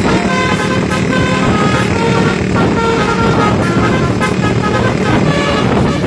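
Tour bus's BASURI musical horn playing a quick tune of short notes at changing pitches, over the bus's engine and road noise.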